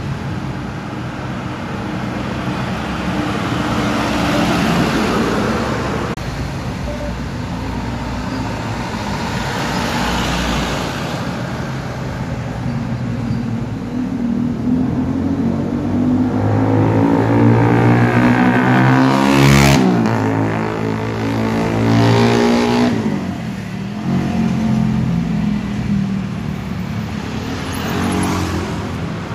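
Street traffic: motor vehicles, a motor scooter among them, passing by one after another. The loudest one goes past about two-thirds through, its engine pitch dropping as it passes.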